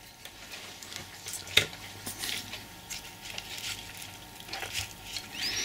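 Faint handling noises of small parts on a workbench: light clicks and scuffs as a small model-railway decoder circuit board is picked up and clamped in metal locking tweezers, with one sharper click about one and a half seconds in.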